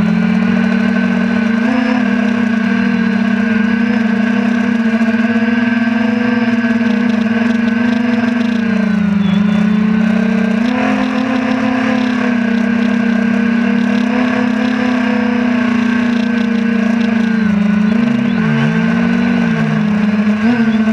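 DJI Phantom 2 quadcopter's motors and propellers humming steadily in flight, heard from the camera mounted on the drone. The pitch dips and recovers about nine seconds in and again near the end as the throttle changes.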